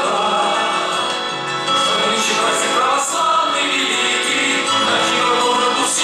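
Rock-opera ensemble of male voices singing sustained chords together over instrumental accompaniment.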